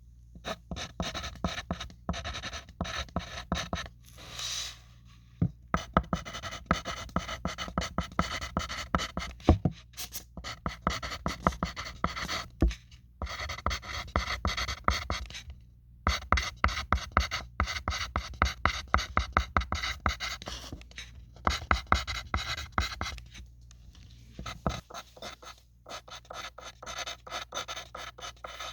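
Pencil writing on a sheet of paper: runs of quick scratchy strokes, broken by short pauses every several seconds.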